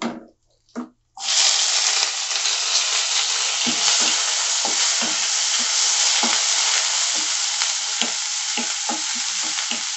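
Chopped onion sizzling in hot oil in a non-stick kadhai, starting suddenly about a second in as it goes into the oil and then holding a steady hiss. From about three seconds on, a wooden spatula stirs it, with short knocks against the pan.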